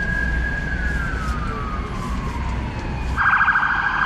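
Ambulance siren: a long wailing tone that slowly falls, then about three seconds in switches to a louder, fast yelp, over a low rumble.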